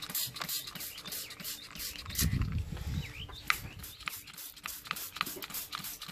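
Trigger spray bottle squirting Purple Power degreaser into the oily cast-metal intercooler pan of a supercharger, in quick squirts about two to three a second, each a short hiss with the liquid spattering on the metal. A louder low rumble runs for about a second, about two seconds in.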